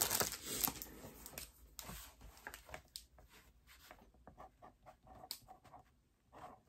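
Faint rustling and light scratching of hands handling plastic packaging and small rhinestone packets, in short irregular bits, with a soft crinkle of plastic fading away at the start.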